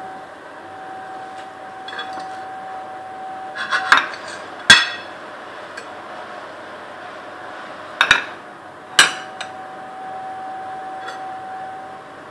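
Crockery being handled: a serving tray and dishes knocking and clinking against each other and the countertop, a handful of sharp knocks with the loudest about five seconds in. A steady faint hum runs underneath.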